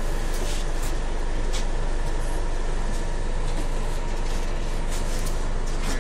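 Steady interior noise of a Scania CN280UB city bus, a low engine rumble with a few short rattles of the cabin fittings.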